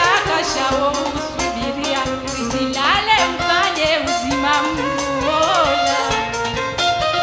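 Live Comorian twarab (toirabe) music: a woman sings through a microphone in long sliding, ornamented phrases over a band with a steady percussion beat.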